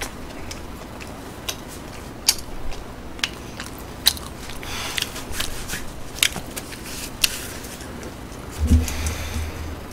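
Close-miked chewing of soggy French fries: scattered wet mouth clicks and smacks, with a short low hum near the end.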